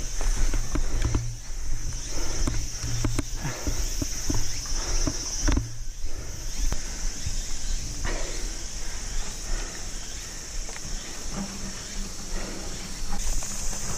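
Mountain bike going over a rocky forest trail: low tyre rumble with frequent clattering knocks, busiest in the first half. Behind it, cicadas drone in one steady high tone that grows louder near the end.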